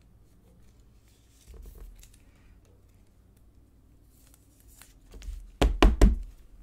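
Faint rustling of a soft card sleeve and a rigid plastic toploader being handled. Near the end come three quick, loud knocks as the toploader is set down on the table.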